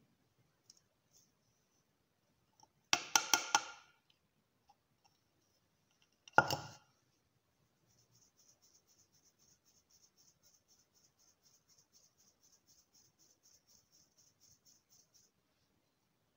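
Kitchen sieve of ground cardamom being worked with a spoon: a quick run of clinks against the sieve, a single sharp knock a few seconds later, then a faint, even scratching at about four strokes a second as the powder is sifted through the mesh.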